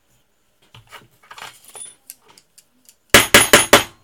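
Faint knocks and rustling, then a loud, quick jangling clatter of small hard objects close to the microphone near the end: about five rapid clinks in under a second.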